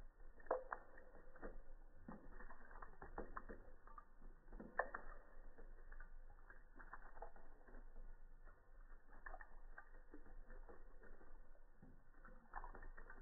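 A cat lapping water from a thin stream running out of a tap, played back slowed down. The tongue-flicks and splashes come out as faint, muffled, irregular low clicks and taps.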